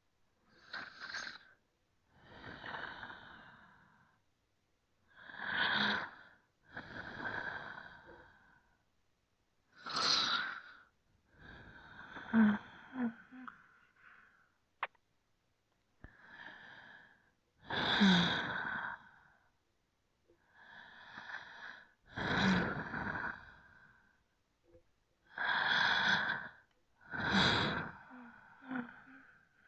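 Slow, deep human breathing: long inhales and exhales follow one another about every two seconds, with a short silence between breaths. A few breaths carry a brief, faint low voiced note.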